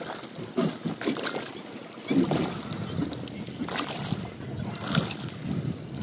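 Small rowed boat on the water: a handful of short splashes and knocks from the oars at uneven intervals over a steady wash of water and wind.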